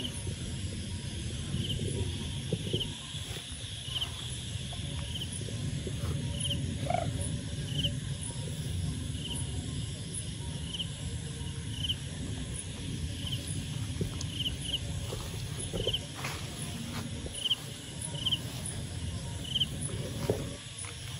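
Outdoor ambience: a low steady rumble, with short high chirps about once a second from an insect, and a few faint clicks.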